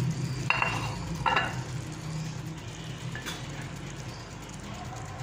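Metal ladle scraping and clinking in a metal pot as thick chickpea curry is scooped out and served, with two sharp clinks about half a second and a second and a half in, over a steady low hum.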